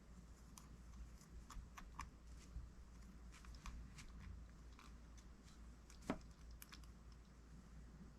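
Near silence broken by faint scattered clicks and light taps of small metal reel parts and tools being handled, with one sharper click about six seconds in.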